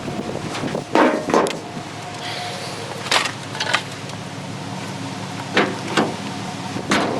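A series of sharp knocks and clanks of objects being handled, mostly in pairs about half a second apart, over a steady low rumble.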